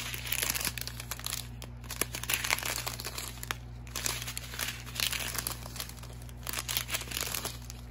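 Crinkling of clear plastic bag strips holding diamond-painting drills as they are handled and turned over, in irregular rustles.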